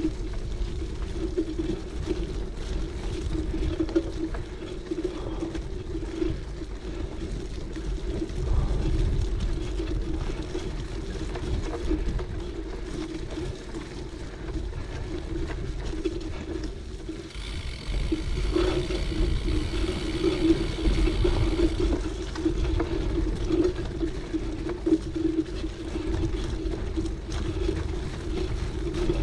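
Cyclocross bike riding a gravel forest trail: the tyres hum steadily over a low rumble. A higher buzz joins in for a few seconds a little past halfway.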